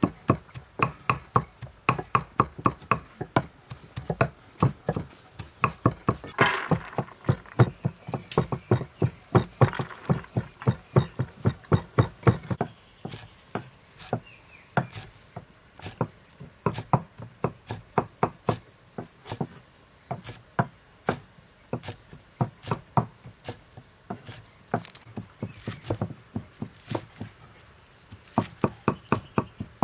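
Cleaver chopping on a thick wooden chopping block in steady runs of about three to four chops a second, with short pauses between runs, cutting garlic cloves and then long beans and chives into short pieces.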